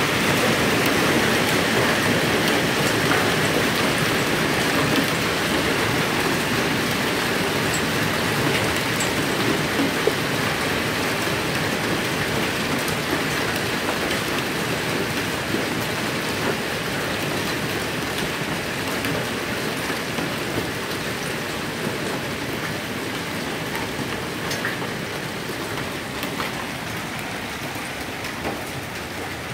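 Hail and heavy rain pelting the cars and the ground: a dense, steady patter with scattered sharper ticks that gradually eases off.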